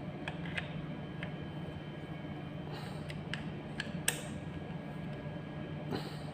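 Bolts clamping a petrol trimmer's shaft tube being tightened with a wrench: scattered small metal clicks and creaks, the sharpest about four seconds in, over a steady low hum.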